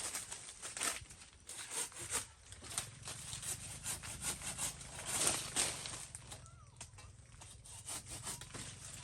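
Irregular scraping and rubbing strokes, like wood or dry material being rubbed or sawn, over a faint steady low hum.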